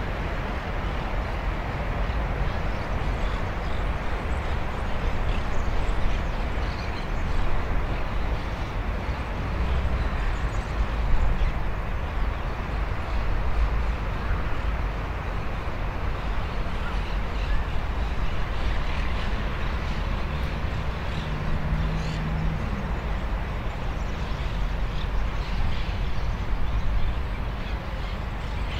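Steady outdoor ambience: wind rumbling on the microphone over a distant hum of town traffic.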